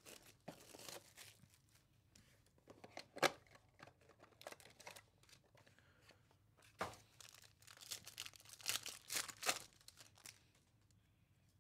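Plastic shrink wrap crinkling and tearing as it is pulled off a trading-card box, then a shiny card-pack wrapper torn open, in faint, uneven crackles and snaps. The sharpest snap comes about three seconds in, and the crackling comes in a quick run near the end.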